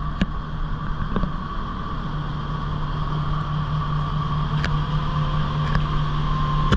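Kubota SVL75 skid steer's diesel engine running steadily, with a constant low hum and a few light clicks.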